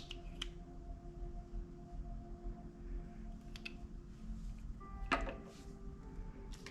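Slime being handled, giving a few sharp popping clicks, the loudest about five seconds in, over soft background music with held notes.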